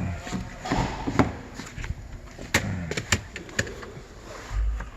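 A series of sharp clicks and knocks, several in quick succession in the middle, then a low thump near the end.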